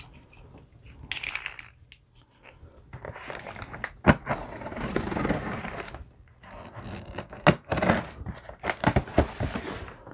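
Packing tape on a cardboard shipping box being slit with a box cutter and torn open, with cardboard flaps rubbing and scraping. A short ripping burst comes about a second in, and a run of sharp knocks and clicks near the end.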